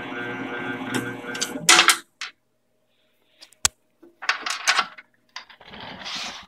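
Small CNC lathe cutting plastic stock, running with a steady hum of several tones, which stops suddenly about two seconds in with a short clatter. After that come scattered clicks and knocks.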